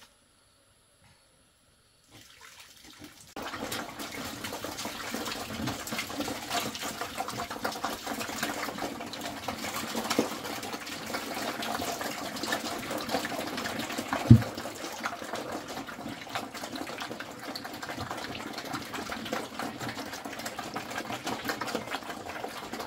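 Heavy rain that sets in about three seconds in after near silence: a dense, steady patter of many drops, with one dull thump about two-thirds of the way through.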